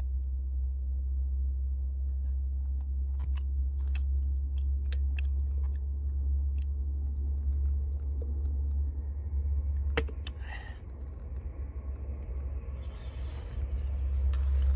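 A steady low rumble, with scattered light clicks of chopsticks against a wok and chewing while eating.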